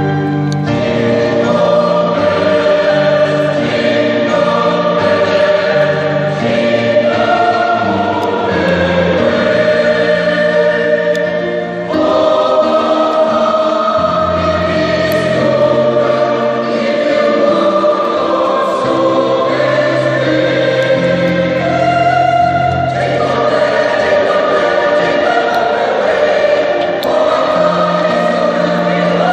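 Mixed choir of men's and women's voices singing in sustained chords, with a short pause between phrases about twelve seconds in.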